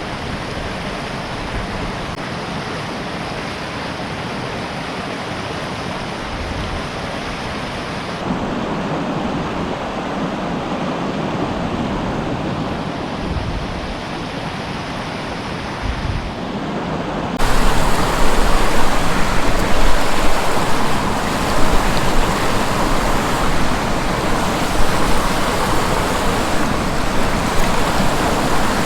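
River water rushing steadily. The sound shifts abruptly about eight seconds in and gets noticeably louder about seventeen seconds in.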